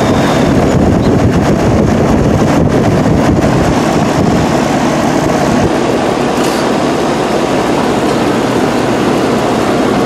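Steady running noise of an outdoor central air-conditioner condenser unit close by, with wind rumbling on the microphone.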